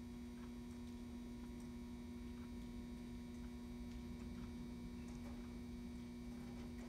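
Steady electrical mains hum, one constant tone with a weaker higher one, with a few faint soft ticks scattered through it.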